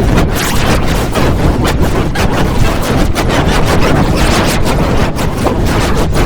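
Loud, harsh wall of distorted noise with rapid flickering, no clear pitch or beat.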